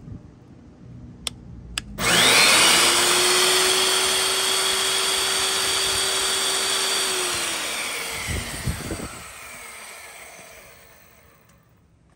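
Nitto Kohki Atra Ace QA-4000 magnetic drill: two clicks of its switch lever, then the drill motor starts about two seconds in with a quickly rising whine. It runs steadily for about five seconds, then winds down with a falling whine and fades out.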